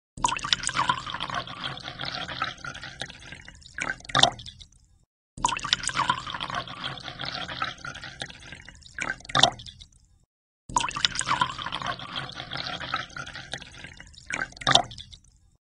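A thin stream of water pouring into a glass aquarium tank, splashing and bubbling as it fills. It comes in three nearly identical stretches of about five seconds, each ending with a couple of sharper splashes and a brief silence.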